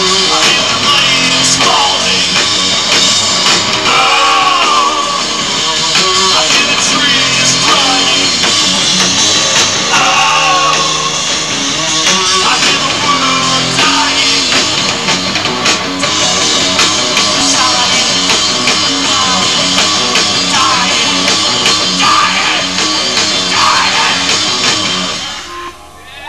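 Live rock band playing, guitars under a singer at a microphone; the music breaks off briefly near the end.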